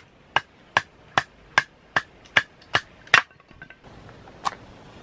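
Pieces of split firewood set down one after another onto charcoal in a small grill: nine sharp wooden clacks at an even pace, about two and a half a second. About a second after they stop comes one short scrape, a match struck on its box.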